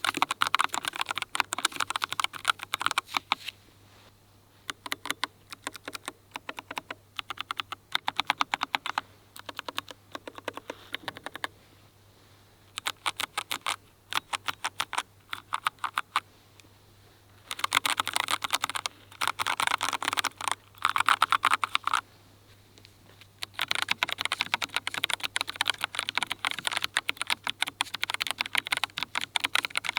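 Typing on low-profile mechanical keyboards: rapid runs of keystroke clicks broken by short pauses. First it is a Keychron K3 Ultra 8K with Milk-POM Brown tactile switches; after a pause about two-thirds of the way through, it is a Keychron K5 Ultra 8K with Milk-POM Banana early-tactile switches.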